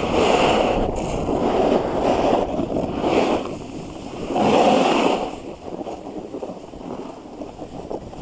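Wind rushing over a body-mounted action camera's microphone together with the hiss and scrape of the rider sliding over packed snow on a ski run, swelling loudly at the start and again about four and a half seconds in, then easing off.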